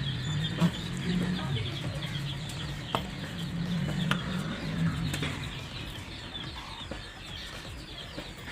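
Background birds chirping and chickens clucking, with a few sharp clicks from handling.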